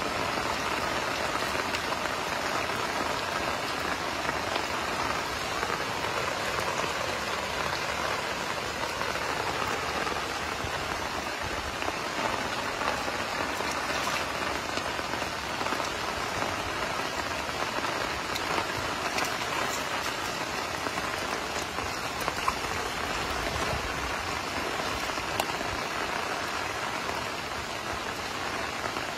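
Steady rain falling on shallow standing water over concrete, an even patter with fine drop ticks throughout.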